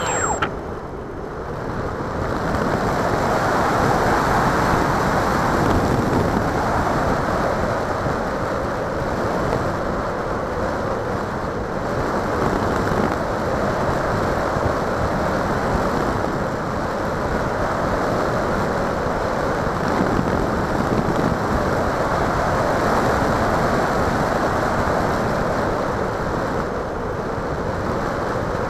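Air rushing over a small FPV model plane and its onboard camera microphone as it glides. The motor's falling whine cuts out just after the start, leaving a loud, steady rush of wind that swells and eases slightly.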